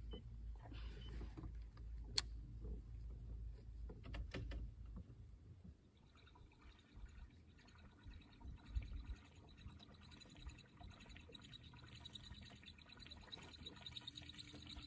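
Faint water sounds, small lapping and trickling noises, with two light knocks about two and four seconds in.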